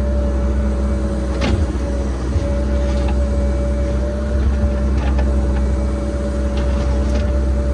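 Cat 306 mini excavator's diesel engine running steadily under load, with a steady whine over it and a few sharp knocks as it digs out a drainage trench.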